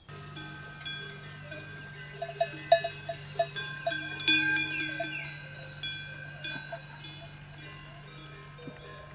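Bells clanking irregularly, each strike ringing on briefly, over a steady low hum.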